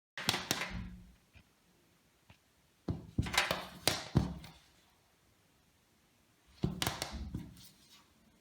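Clicks and knocks of PC hardware being handled, in three short bunches, as a hard drive is fitted into a computer case.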